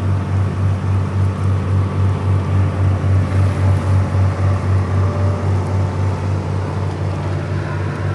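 River cruise boat's engine running steadily underway, a loud low hum that pulses about four times a second, heard on board.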